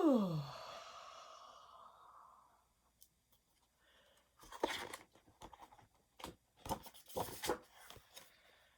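A woman's drawn-out yawn, falling steeply in pitch and trailing off into a breathy exhale. From about halfway, paper picture-book pages and flaps being handled and turned, with several crisp rustles and crackles.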